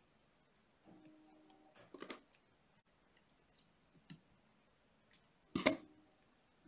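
Small clicks and taps of jewelry pliers and copper wire being handled while wire-wrapping a ring, scattered and irregular, the loudest a sharp click about five and a half seconds in.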